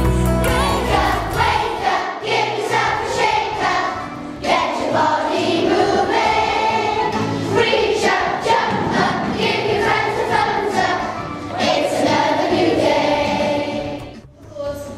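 A choir singing with instrumental accompaniment. The music dips away briefly near the end.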